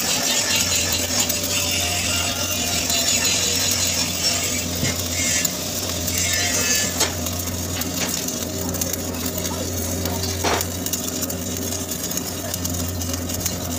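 Shielded metal arc (stick) welding on a 10-inch carbon-steel pipe: the electrode arc crackles and sizzles steadily while the first layer of the weld is laid. A steady low hum runs underneath.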